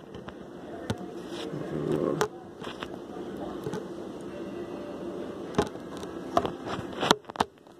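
Handling noise of a phone held in the hand: fingers and palm rubbing over the microphone, with a few sharp knocks, the loudest near the end. Under it runs a steady low buzzing hum.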